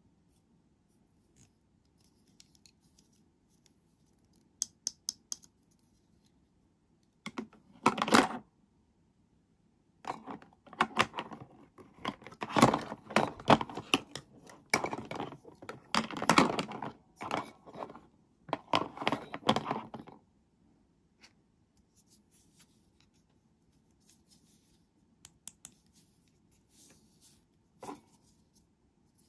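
Plastic toy doctor-kit pieces clicking and clattering as they are handled and snapped into their plastic case. A few quick clicks come first, then busy clacking and rattling of plastic on plastic from about ten to twenty seconds in, before it dies down to faint taps.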